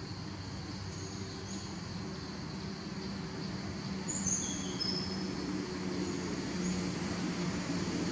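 Steady outdoor background hum, growing slightly louder toward the end, with a few short high bird chirps about a second in and again around four to five seconds in.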